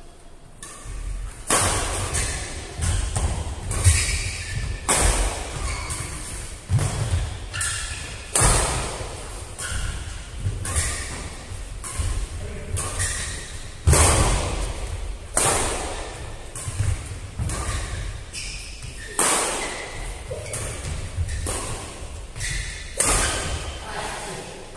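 A long doubles badminton rally: rackets striking a plastic shuttlecock about once a second, mixed with thudding footsteps on the court, each hit echoing in a large hall.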